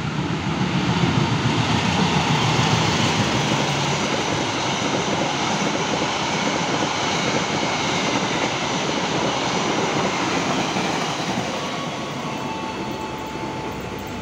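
Diesel-hauled express passenger train running through the station at speed. It is loudest in the first few seconds as the locomotive passes, then the carriages go by with steady wheel-and-rail noise that slowly fades.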